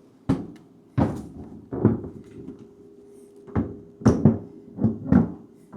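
GE refrigerator door knocking and thudding against its hinge as it is set onto the hinge pin: a series of irregular thunks, the loudest about four seconds in.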